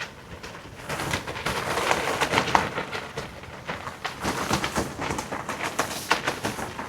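Loose satin clothing flapping and snapping in gusty wind, a fast irregular run of fabric cracks and rustles over wind noise, strongest through the middle.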